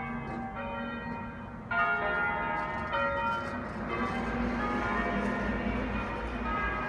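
Church bells pealing, several bells struck in turn and ringing on, coming in loudly a couple of seconds in after a few softer chime-like notes.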